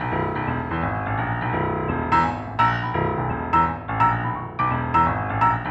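Background music: a steady keyboard bed, joined about two seconds in by a regular run of struck piano-like notes that ring and fade.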